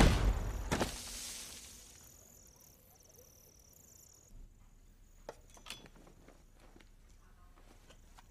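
A heavy thud of a body hitting a stone floor, followed by a hiss that fades away over about two seconds. Then near quiet with a few faint ticks.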